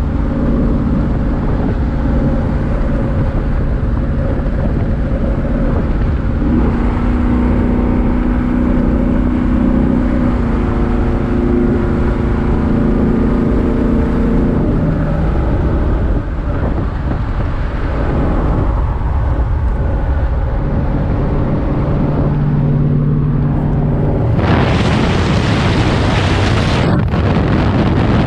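Vehicle engine and road noise heard from inside the cab while driving at steady speed, with an even engine hum. Near the end a loud rushing hiss lasts about three seconds.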